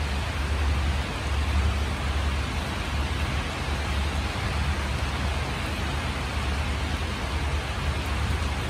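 Steady rain falling on leaves and surfaces around a courtyard, an even hiss with no letup, over a constant low rumble.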